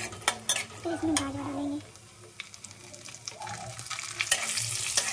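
Chopped dry fruits frying in hot ghee in a kadhai, stirred and scraped around the pan with a spatula. The ghee sizzles, louder near the end.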